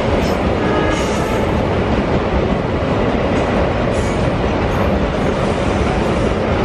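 Double-stack container wagons of a freight train rolling past close by: a loud, steady rumble of steel wheels on rail. A faint high whine shows briefly about a second in.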